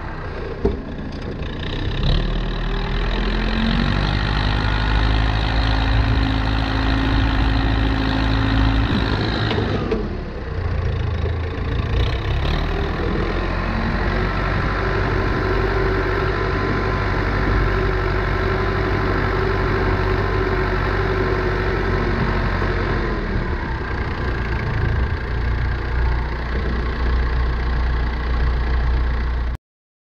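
1979 Allis-Chalmers 715B backhoe's diesel engine running, picking up speed about two seconds in, easing off briefly around ten seconds, then running steadily again before cutting off suddenly near the end.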